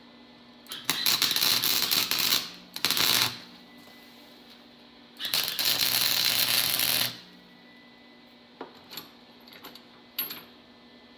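Electric arc welder laying short beads on 1/8 inch steel: three bursts of sputtering crackle, the last about two seconds long, followed by a few light clicks.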